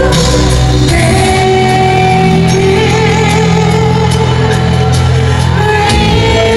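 Live pop band with a female lead singer, sung notes held over a heavy, steady bass through the PA, loud and echoing in a large arena.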